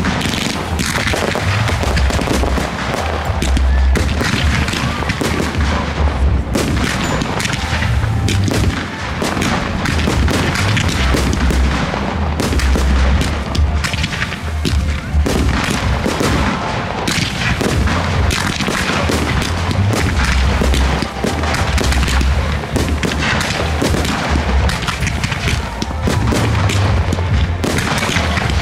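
Fireworks display: a continuous, dense barrage of shell bursts, launch thumps and crackle with no break.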